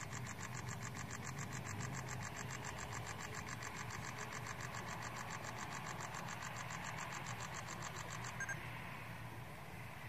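Distant car traffic on a mountain road: a low, steady engine hum, with a fast, even, high-pitched pulsing over it that stops near the end.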